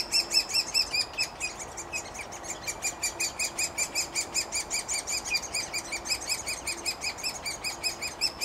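Great spotted woodpecker nestlings begging from inside the tree hole while an adult feeds them: an unbroken, fast chorus of high chirping calls, about five or six a second, loudest in the first second or so.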